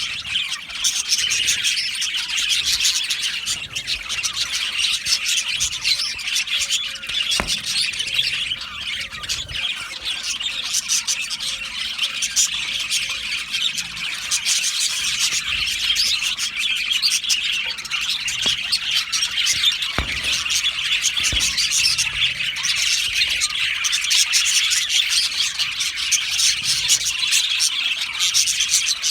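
A colony of budgerigars chirping, warbling and squawking all at once in a dense, unbroken chatter, with a few faint clicks.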